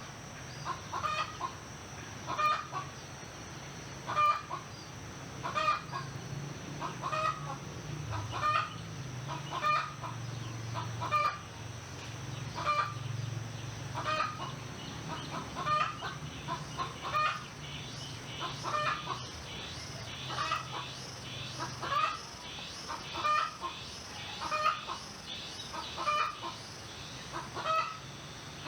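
A chicken clucking over and over, one short call about every second and a half. Smaller birds chirp faintly behind it, and a low steady hum dies away about two-thirds of the way through.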